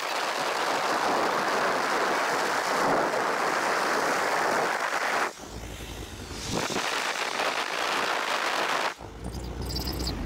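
Wind and road noise rushing past a Toyota sedan at highway speed. It drops abruptly twice, about five seconds in and again near the end, to a quieter low rumble from inside the cabin.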